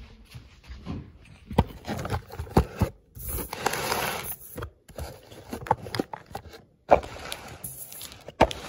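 Close-up handling noise on a wooden table: irregular knocks and gritty scraping as a sheet of paper is pushed across the surface right by the phone's microphone. It sounds like driving on an unpaved road.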